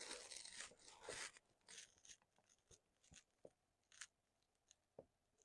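Near silence with a few faint, brief rustles and small clicks, strongest near the start and about a second in.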